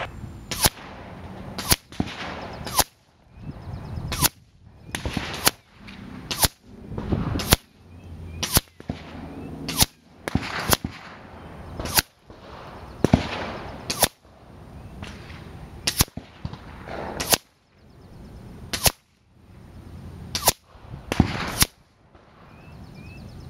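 A quick run of about twenty sharp gunshot cracks, roughly one a second, each rising out of a swell of noise.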